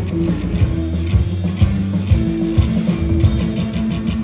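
Rock band playing live, an instrumental stretch between vocal lines: held bass notes, guitar and a steady drum beat.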